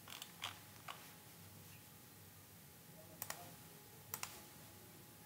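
Faint computer mouse clicks, a few scattered and then two quick pairs.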